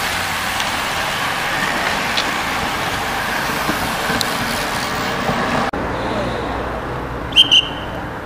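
A bunch of racing bicycles passing close by: a steady hiss and whirr of tyres and drivetrains. About two-thirds of the way through the sound cuts suddenly to a quieter background, with two short high-pitched chirps near the end.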